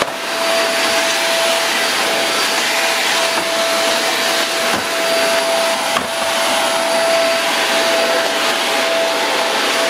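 iWoly cyclonic stick vacuum running steadily while vacuuming a hardwood floor: a constant rush of airflow with a steady motor whine.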